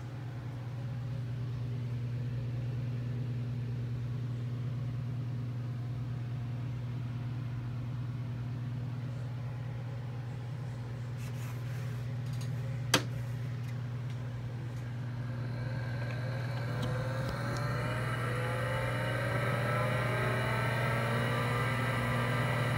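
Steady low hum, then a single sharp click about thirteen seconds in, followed by a rising whine that keeps climbing in pitch: an old 5.25-inch Seagate ST-412 MFM hard drive spinning up.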